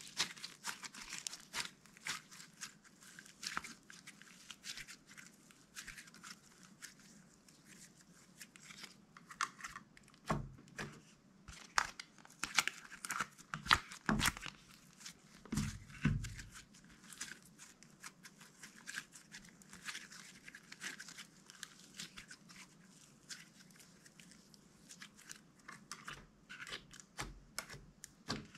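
Slime being squished and stretched by hand, a steady run of small sticky crackles and pops, with a few louder, deeper thumps in the middle.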